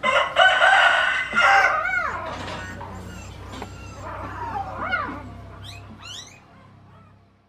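A rooster crows, a loud held call of about two seconds that drops away at its end. Afterwards come softer short rising-and-falling cries and quick high squeaks, the whimpering of newborn puppies.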